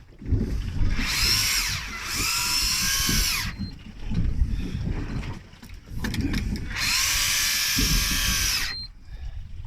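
Electric deep-drop fishing reel winding in line in two bursts of about two seconds each, reeling a hooked fish up from deep water. Its motor whine rises in pitch as each burst starts and drops as it stops.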